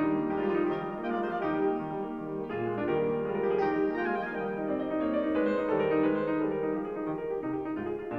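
Background music: classical-style piano playing held notes and chords that change every second or so.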